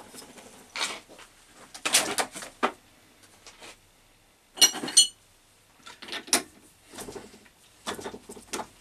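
Metal parts and tools being handled and set down on a workbench: a series of irregular knocks and clinks, the loudest about five seconds in with a brief metallic ring.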